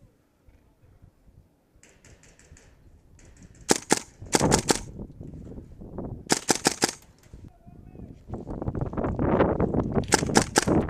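Gas blowback airsoft guns firing in quick strings of sharp shots, three loud bursts of several shots each, the first about four seconds in. Under the last burst there is a rough, steady noise.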